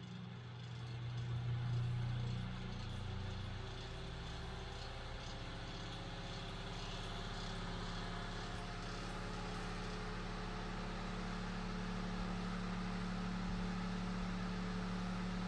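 Knapp Monarch Jack Frost 8-inch table fan coming up to speed over the first couple of seconds, then running steadily with a motor hum. Its stamped-steel blades are out of alignment and unbalanced at high speed, which adds a vibration noise.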